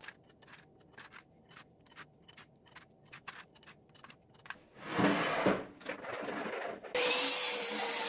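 Wooden abacus beads clicking softly as they are slid onto brass rods, a few light clicks a second. About five seconds in comes a louder scraping noise, then at about seven seconds a table saw's motor is suddenly running at full speed, a loud steady whirring hum.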